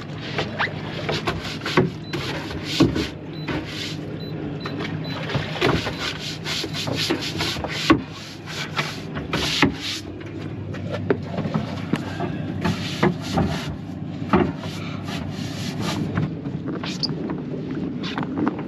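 Irregular knocks, clicks and rubbing from gear being handled in a boat's open deck hatch, over a steady low hum.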